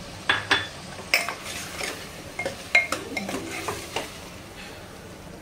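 Steel ladle scraping and knocking against the inside of a pressure cooker as mutton is stirred and roasted in hot oil with freshly added ground spices, a light sizzle underneath. The stirring strokes stop about four seconds in, leaving the sizzle.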